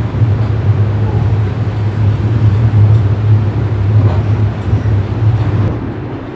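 Moving passenger train heard from an open coach doorway: steady low rumble of wheels running on the track, with a few faint clacks near the end.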